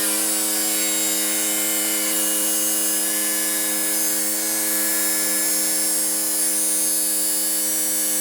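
Electric chop saw motor running free at full speed, a steady whine that holds one pitch with no cutting.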